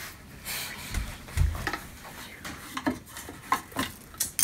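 Wooden tray of golden-bead material handled on a hardwood floor: two low thumps a little over a second in, then a run of short clicks and clinks as the bead bars and squares are moved about in the tray.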